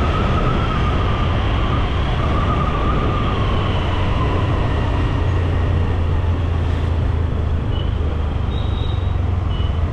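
Steady low rumble of wind and road noise on a moving Honda Activa 125 scooter in traffic. A wavering siren fades out over the first few seconds, and a few short high beeps sound near the end.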